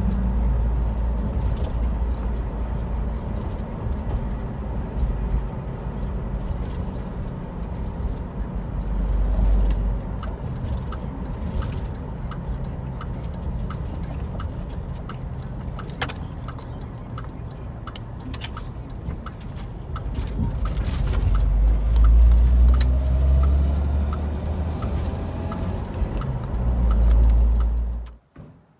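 Car driving, heard from inside the cabin: a steady low rumble of engine and road noise that swells louder twice. A light regular ticking, a little more than once a second, runs through much of the middle. The sound cuts off sharply near the end.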